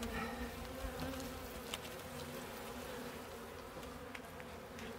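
A honeybee colony buzzing steadily, a low even hum from the bees on and around comb in an open steel tank, with a few faint clicks.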